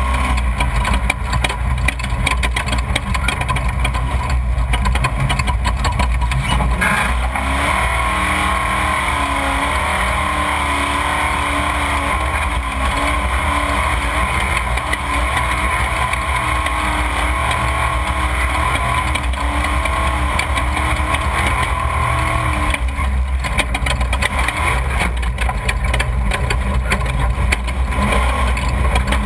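Off-road desert race car's engine running hard on course, its pitch rising and falling as the throttle changes, over steady rumble and noise. A single sharp knock comes about seven seconds in.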